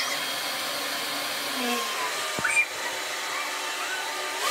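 Electric blower running steadily, pushing air through a hose into a giant Wubble Bubble balloon to inflate it.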